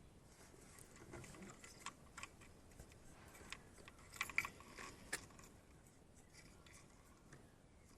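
Faint small clicks and scratching of a terminal release tool and fingers working a plastic two-pin alternator connector to free a crimped terminal, with a couple of sharper clicks about four and five seconds in.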